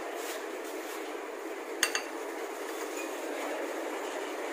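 Steady background noise of a busy bus stand with passing traffic, broken by one sharp double clink a little under two seconds in.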